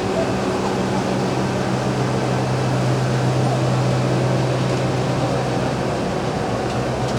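Steady mechanical hum with an even rushing noise, like a ventilation or air-conditioning fan running.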